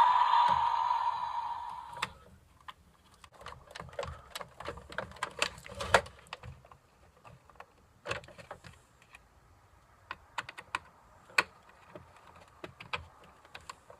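Light, irregular clicks and taps of plastic toy parts being handled and fitted together. A steady hiss-like noise fades out over the first two seconds.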